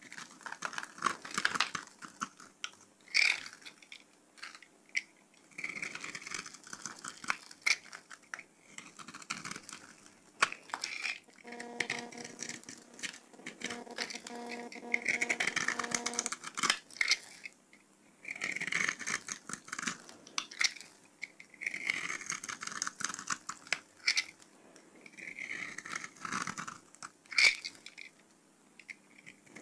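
Craft knife cutting through a bar of dry soap in repeated strokes, with crisp crackling as small cubes and thin shavings break off the bar.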